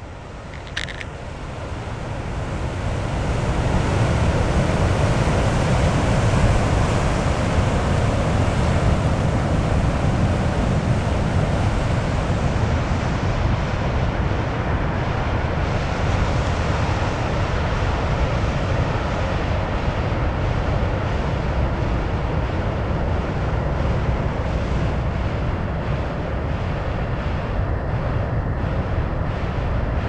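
Pacific Ocean surf crashing on a rocky shore, with foaming water surging and draining among the rocks. It makes a continuous, heavy roar that swells over the first few seconds and then holds steady.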